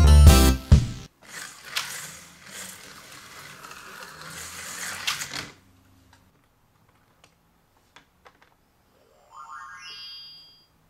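Battery-powered toy slot cars whirring around a plastic race track for about four seconds, after the last note of a music jingle. A few scattered clicks follow, and near the end comes a short rising tonal sweep.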